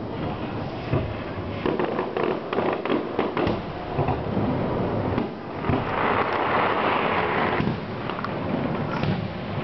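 Fireworks going off: a rapid run of sharp cracks and bangs over the first few seconds, then a dense steady hiss for about two seconds past the middle, with a few more cracks near the end.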